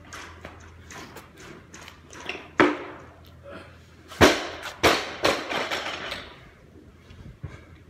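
Four or five sharp clanks of barbell and weight plates being handled, the loudest about two and a half and four seconds in, each ringing briefly.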